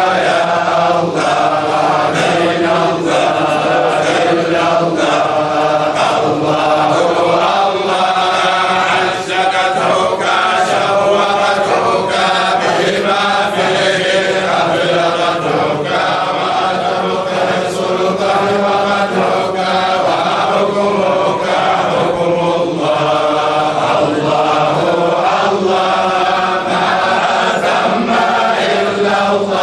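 Islamic devotional chanting: voices singing a slow religious chant with long held notes, without a break.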